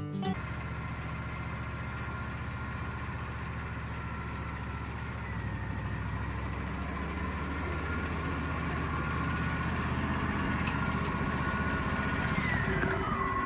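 Wood-Mizer band sawmill running steadily, with a thin whine that dips in pitch and rises again near the end.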